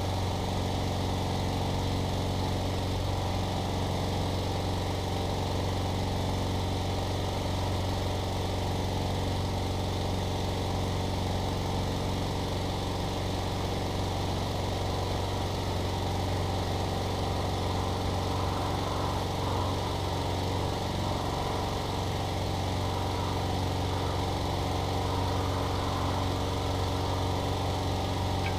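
Trac Vac leaf vacuum's gas engine running steadily at constant speed, driving its mulching impeller as it sucks up sawdust and bark; a steady low hum.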